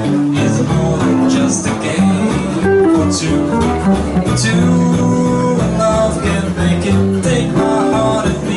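Music led by guitar.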